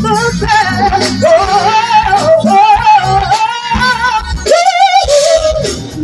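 Live gospel choir and band performance: a female lead singer sings long, wavering, melismatic lines with heavy vibrato over drums and keyboards, then holds a long note near the end.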